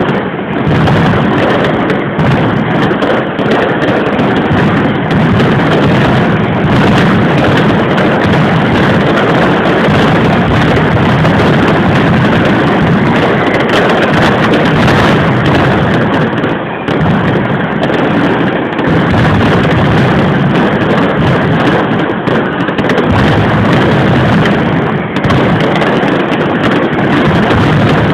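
Mascletà firecrackers going off in a dense, unbroken barrage of loud bangs, far too quick to count, merging into one continuous din.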